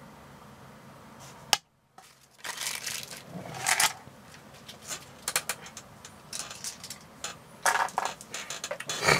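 Hands handling packaging and game pieces on a table: irregular crinkling and clicking, with a sharp click and a short break in the sound about a second and a half in.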